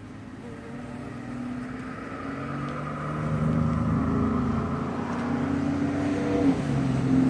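Honeybees buzzing close by around the open hive, several wing-beat tones overlapping and wavering. The buzz grows louder over the first three seconds and stays loud.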